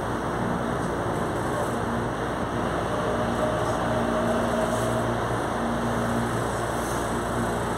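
Steady running noise heard inside a moving electric commuter train car: wheels rolling on the rails with a low motor hum whose tones fade in and out.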